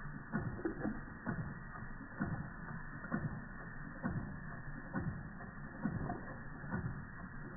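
Georges Carette Model 175 twin oscillating-cylinder toy steam engine running slowly, giving a steady rhythm of soft mechanical knocks about once a second as the cylinders rock.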